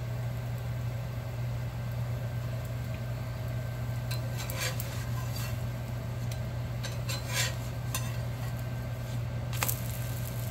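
Metal spatula scraping and clicking against a cast iron pan as a dosa is loosened and flipped: several short scrapes from about four seconds in, the sharpest one near the end, over a steady low hum.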